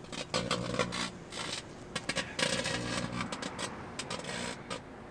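Irregular crackling and scraping with a low hum that comes and goes: lithium-ion phone batteries sparking inside a running microwave oven.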